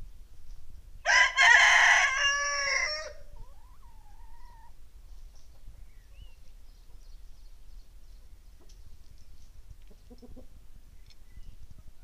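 Rooster crowing once: a single cock-a-doodle-doo about two seconds long, starting about a second in, with a faint brief cluck near the end.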